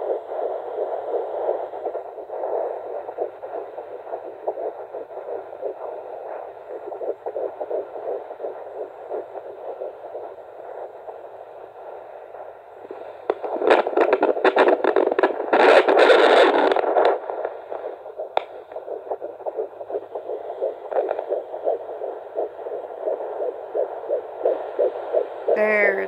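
Huntleigh Dopplex FD2 fetal Doppler's speaker giving the fast whooshing pulse of a fetal heartbeat, read at about 169 beats a minute. Midway through, a loud rush of noise for a few seconds as the probe is shifted and loses the signal, then a slower pulse read at about 113 beats a minute, the mother's own heartbeat.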